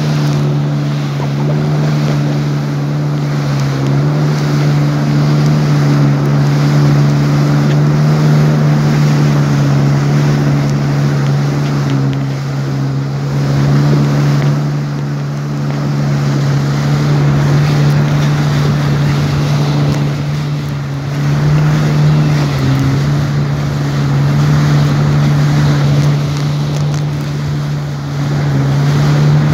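Jet ski engine running at a steady cruising speed, a constant low drone holding its pitch, over the rush of water spray and wind buffeting the microphone.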